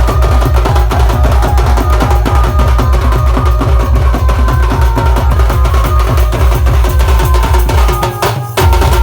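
Chhattisgarhi dhumal band music: fast, heavy bass-drum beats under a sustained melody line. The music drops out briefly about eight seconds in, then comes back in.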